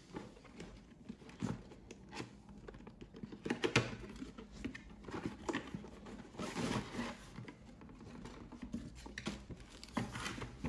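Cardboard box and plastic packaging being handled and opened: scattered faint rustles, taps and scrapes.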